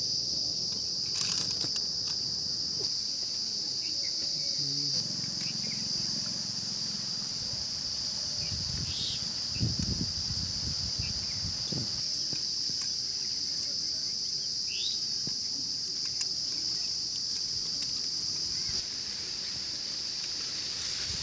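Insects chirring outdoors: one steady, high-pitched drone, with a couple of short rising chirps near the middle.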